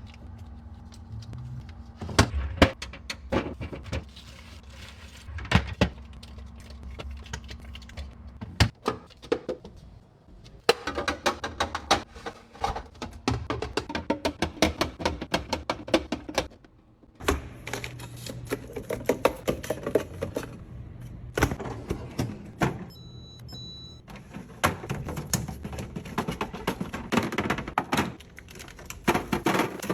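Many short knocks, clicks and taps of containers and items being handled and set down during fridge restocking, over background music.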